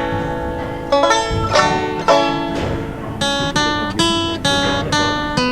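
Music: guitar and banjo picking a bluegrass-style tune, a quick run of plucked notes that ring and fade.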